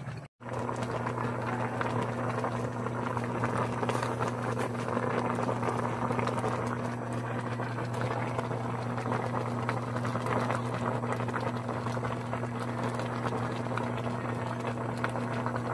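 A pot of paksiw, round scad in vinegar broth with long green chilies, boiling on the stove. The broth bubbles steadily over a constant low hum.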